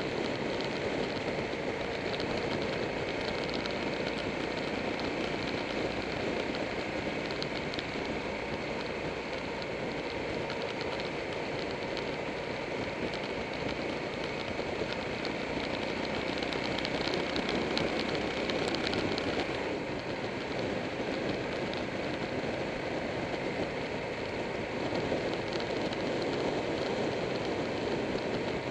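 Steady wind rush and road noise on a motorcycle-mounted camera at road speed, with the motorcycle's engine running underneath.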